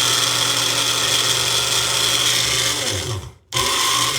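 Small bullet-style personal blender motor running at full speed on a thick load of frozen pineapple and ice cream. About three seconds in it spins down and stops, then runs again in a short burst near the end.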